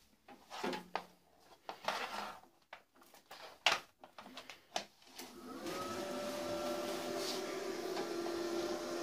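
Clicks and knocks of a power plug being handled and pushed into a socket. About five and a half seconds in, the HZXVOGEN MIG 250 inverter welder's cooling fan starts as the machine powers up: a quick rise in pitch that settles into a steady whirring hum.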